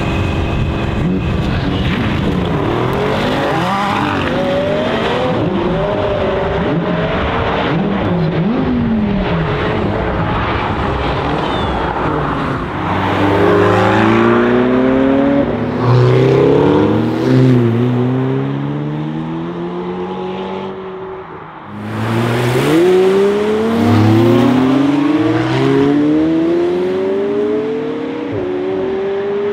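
McLaren 720S twin-turbo V8 under hard acceleration, revs climbing and dropping back in steps as it shifts up through the gears, over several separate runs. In the first part a second car's engine revs alongside it.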